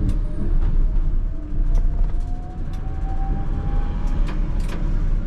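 Tatra T3R tram under way: a low rumble of wheels on rail with a single whine rising slowly in pitch as it gathers speed. Several sharp clicks and rattles punctuate it.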